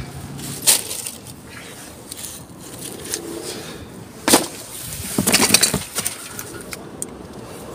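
Rummaging by hand through discarded toys, boxes and packaging in a large plastic bin: scattered knocks, rustles and crinkles of items being shifted. The sound is busiest about four to six seconds in.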